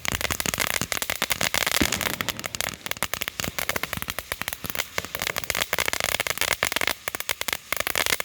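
Consumer fireworks going off on the ground: a dense, continuous run of rapid pops and crackles.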